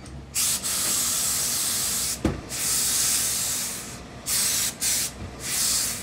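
Steam iron releasing steam in five hissing blasts: two long ones, then three short ones. A single sharp knock comes about two seconds in.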